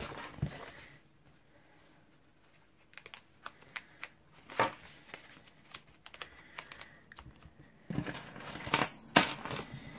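Paper planner pages being pressed onto the disc rings of a disc-bound planner: scattered sharp clicks and paper rustling, with a busier burst of handling near the end.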